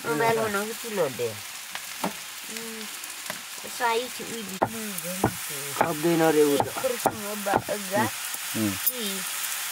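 Green leafy vegetables sizzling as they fry in a small iron wok over a wood fire, stirred with a long spatula that scrapes and knocks against the pan in repeated sharp clicks. Pitched voices can be heard over the frying.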